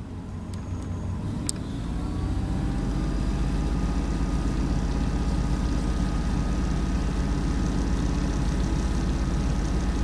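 A motor vehicle's engine running steadily, picking up slightly over the first couple of seconds and then holding even.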